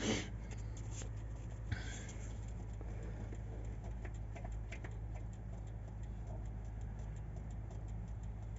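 Hand lever of a JCB 4CX's mechanical fuel lift pump being worked to prime the empty fuel system: faint, irregular clicks and ticks over a low steady hum.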